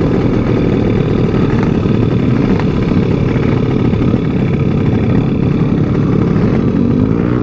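Motorcycle running while being ridden, with heavy wind buffeting on the microphone.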